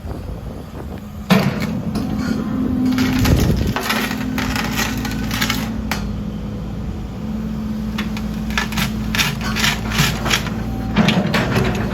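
Sumitomo SH120LC-6 hydraulic excavator running with a steady engine hum, with repeated metal clanks and knocks over it.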